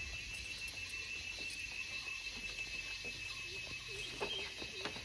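Quiet outdoor ambience: insects keeping up a steady high-pitched drone, over a low rumble.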